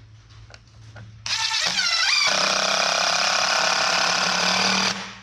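Cordless DeWalt driver driving a screw through a 2x4: about a second in, the motor spins up with a rising whine, then runs loud and steady for about two and a half seconds before stopping abruptly.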